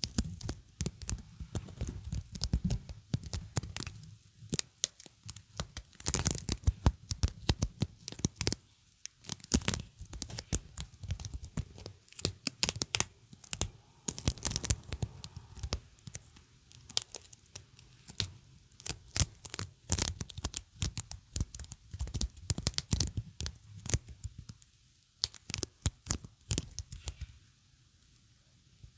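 Sticky material being pressed and peeled apart close to the microphone, giving irregular crackling, tearing pulls in clusters with short pauses between. The sound eases off near the end.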